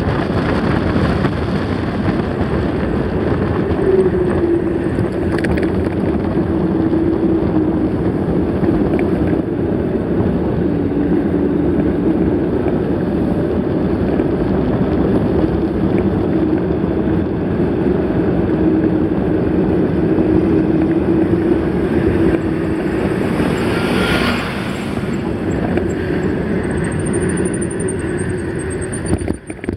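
Wind buffeting the microphone of a camera riding on a moving mountain bike, over the steady rumble of tyres on the trail.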